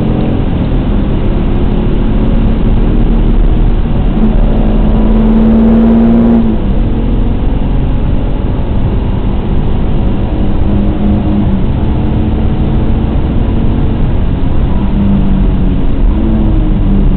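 Alfa Romeo GTA's 3.2-litre V6 engine heard from inside the cabin, pulling hard at full throttle with a gear change about six and a half seconds in, over steady tyre and wind noise. Near the end the engine note drops and picks up again as the car slows for the first corner.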